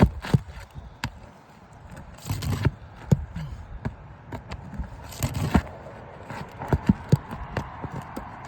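Scattered sharp knocks and scraping from hand tools working on an asphalt shingle roof as shingles are pried loose to replace a damaged one.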